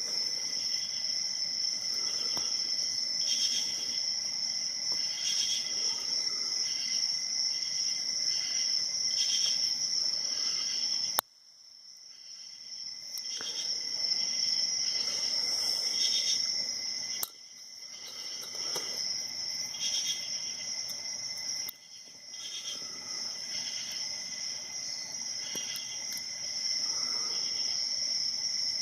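Crickets chirping steadily in a high, continuous trill. The sound drops out abruptly three times and fades back in.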